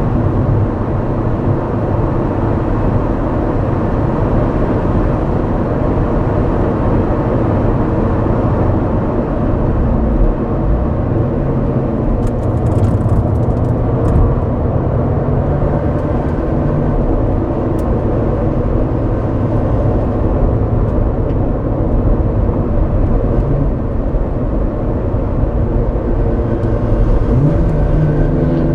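Honda Civic Type R EP3's 2.0-litre four-cylinder engine heard through its exhaust, running continuously under load on track, its pitch shifting with revs and rising near the end.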